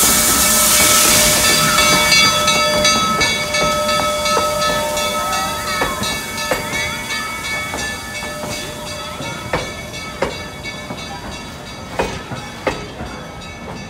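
Black Hills Central Railroad's #110, a Mallet tank steam locomotive, passes slowly, starting with a loud hiss of steam that fades over the first two seconds. Then the passenger coaches roll by with a steady high metallic squeal and a few sharp clicks over the rails, growing fainter.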